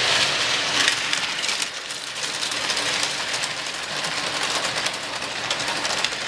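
Toy electric train running along its track, a steady clattering whir of the small motor and wheels with many fine clicks.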